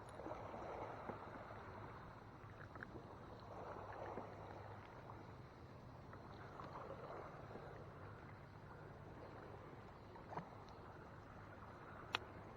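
Faint sounds aboard a small fishing boat on the water: a soft, swelling wash with small handling ticks, a steady low hum underneath, and one sharp click near the end.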